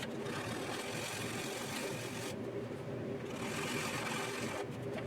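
400-grit wet sandpaper scrubbing on a plastic model kit in two long stretches of back-and-forth strokes, over a steady background hum.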